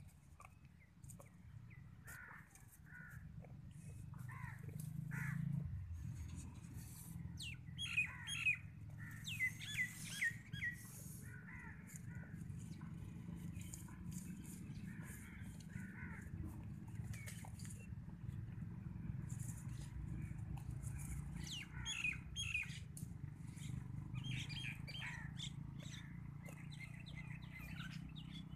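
Small birds chirping in short, quick falling calls, busiest in two bouts, about a third of the way in and again past two-thirds, with scattered sharp clicks and rustles over a steady low rumble.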